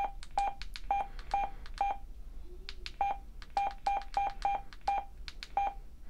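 BTECH DMR-6X2 handheld radio's key-press beeps: a short beep at one mid pitch with a click of the button at each press, a dozen or so in irregular succession with a pause of about a second near the middle, as the menus are stepped through.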